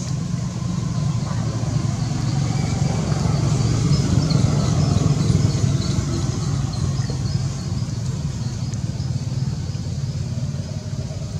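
Steady low rumble of a motor vehicle engine, swelling slightly about four to five seconds in, with faint high chirps over it.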